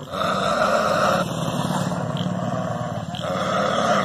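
A dog growling low and without a break at its own reflection in a mirror. The growl swells louder twice, through about the first second and again near the end.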